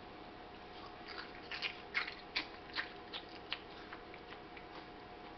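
Chewing of hollow baked Pom-Bär Oven Minis potato snacks: a run of irregular crisp crackles for about three seconds that then die away, over a faint steady hum.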